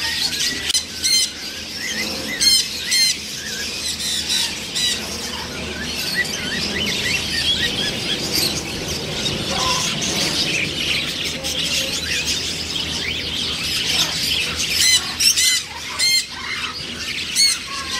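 Macaws squawking: loud, harsh calls, a few near the start and a cluster near the end, over a steady chatter of many other bird calls.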